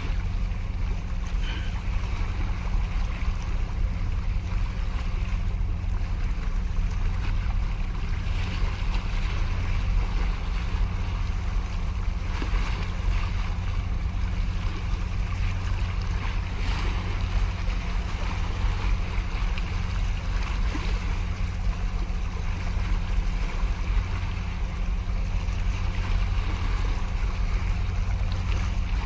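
Small sea waves washing and splashing against concrete breakwater blocks, with a steady deep rumble underneath.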